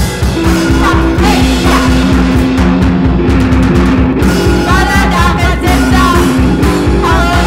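Noise-rock song by a bass-less three-piece of guitars and drums: a fast, even low pulse under held, droning guitar notes. Unintelligible bellowed vocals come in about halfway through and again near the end.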